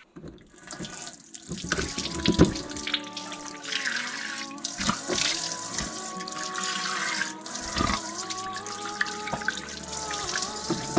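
Tap running into a bathroom washbasin while a man scoops and splashes water on his face, with a few louder splashes among the steady rush of water.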